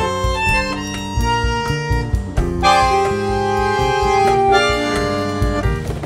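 Background music: a melody of held, reedy notes over a steady beat.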